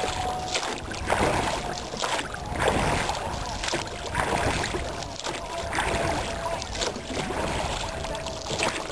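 Oars on a canoe's clamp-on rowing outriggers dipping into and pulling through calm water, with a splash or knock at each stroke, about one a second.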